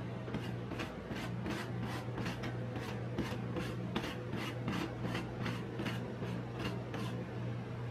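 Metal spatula scraping and smoothing a layer of crushed corn-biscuit ice cream mix across a steel rolled-ice-cream cold plate, in quick short strokes of about three a second. A steady low hum runs underneath.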